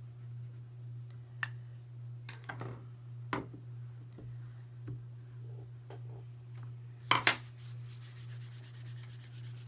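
Hands working a sheet of air-dry clay on a plywood board: scattered light taps and knocks, two sharper knocks about seven seconds in, then a palm rubbing across the clay to smooth it, over a steady low hum.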